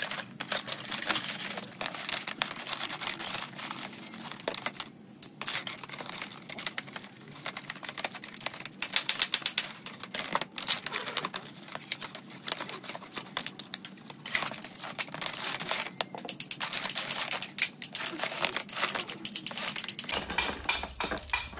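Small steel bolts, nuts and washers clinking and rattling against each other in a plastic tray of dark cleaning liquid as they are scrubbed with brushes and handled. There is a quick flurry of taps about nine seconds in.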